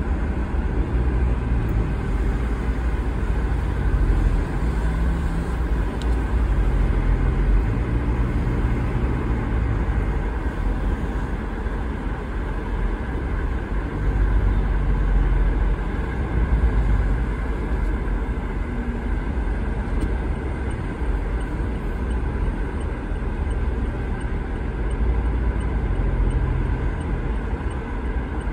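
Steady low rumble of a vehicle driving along a highway, with engine and tyre noise rising and falling gently.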